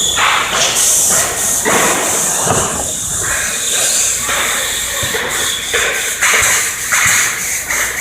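Pneumatic stapler firing repeatedly into wood, each shot a sharp clack with a short rush of air, about one to two a second and unevenly spaced, over a steady high hiss.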